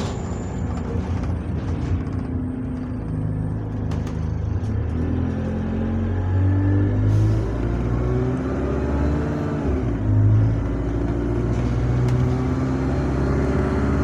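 Bus diesel engine accelerating through its automatic gearbox, heard from inside the passenger saloon: the engine note climbs in steps and drops back at each up-change, with a brief dip and surge about ten seconds in.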